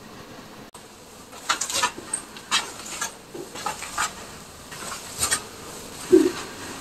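Footsteps scuffing and scraping on a gritty floor, with a run of sharp clicks in the middle, then a dull thud near the end.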